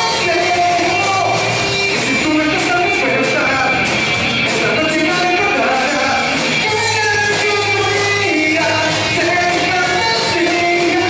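Live rock band playing: a male lead vocal sung over electric guitar, electric bass and a drum kit with cymbals, amplified through the room's sound system.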